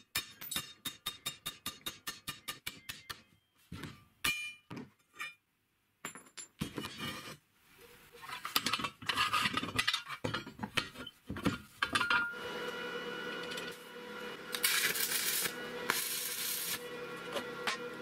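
A hand tool working a steel rectangular tube at a freshly cut square hole: a quick, even run of taps at about five a second, then a few ringing metal clinks and irregular knocks. Later a steady hum with hissing stretches.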